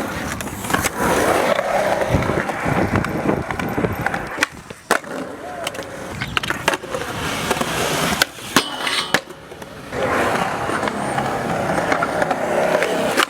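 Skateboard wheels rolling over concrete, fading in the middle, with a few sharp clacks of the board hitting the ground, then rolling again near the end.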